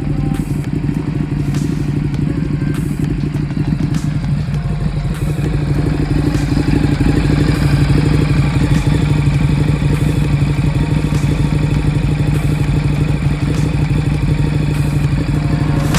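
Ducati Streetfighter's V-twin engine running at a steady speed, with a slight change in its note about four seconds in.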